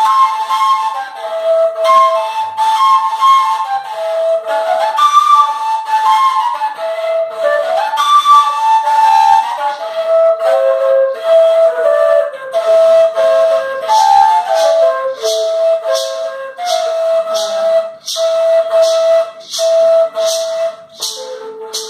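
Colombian gaitas, long cane duct flutes, playing together: a moving melody over a steadily repeated note. A maraca shakes in an even rhythm through the second half.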